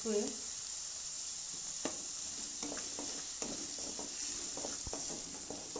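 Chopped onion and tomato with cumin seeds sizzling in oil in an aluminium kadai, stirred with a spatula that scrapes and taps against the pan now and then in sharp clicks.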